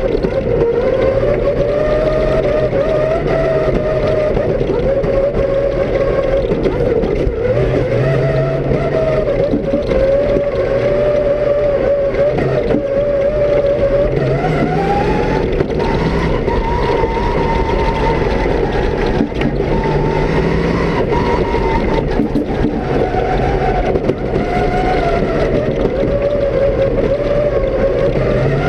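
Cross-country rally car's engine heard from inside the cabin, pulling in second gear; its pitch rises about halfway through, holds, drops back, and climbs again near the end, over a steady rush of noise.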